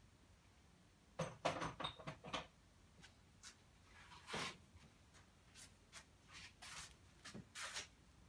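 Short knocks and scrapes of handling, a quick cluster of them about a second in, then brief rubbing strokes against the unstretched canvas as oil paint is worked on by hand.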